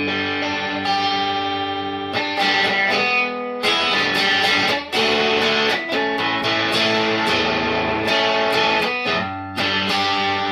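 Electric guitar played through a distortion pedal, a series of sustained, ringing chords with a new chord every second or two. The bass contour knob is turned all the way up, giving a tone that is way too fat.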